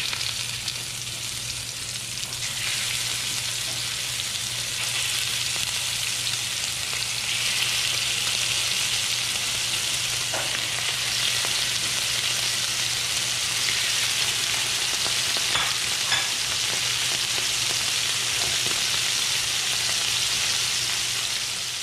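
Scallops searing in smoking-hot oil in a stainless steel sauté pan, a steady sizzle that grows louder in steps as more scallops are laid in one by one.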